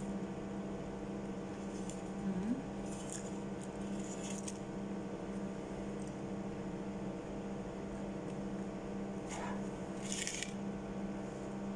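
A person biting into and chewing a chicken burger, with a few short, soft mouth and bite sounds, over a steady low hum that runs throughout.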